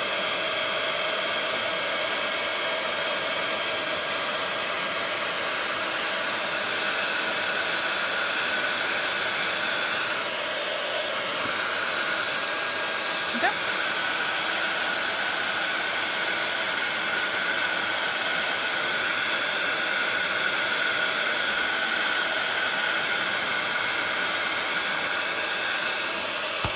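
Handheld craft heat gun blowing steadily, with a motor whine that dips briefly in pitch about ten seconds in, drying wet mica-and-soft-gel paint on a project. A small click sounds about halfway through.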